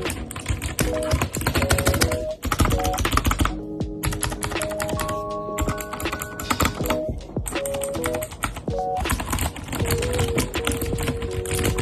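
Fast typing on a computer keyboard, a dense run of key clicks, over background music with held notes.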